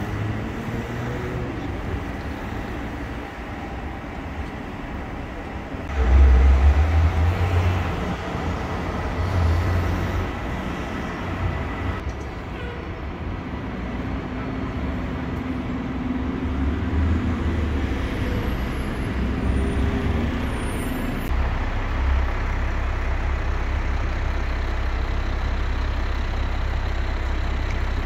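City street traffic noise with a heavy vehicle's engine running for several seconds in the middle. Wind rumbles on the microphone in gusts, the loudest about six seconds in.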